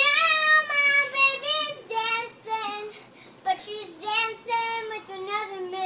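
A young girl singing solo without accompaniment: a few phrases of long held notes, with short breaks between them.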